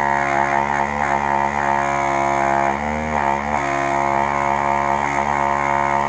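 Hakko desoldering gun's vacuum pump running steadily, drawing solder and broken pin fragments out of a circuit-board hole; its pitch dips briefly about three seconds in.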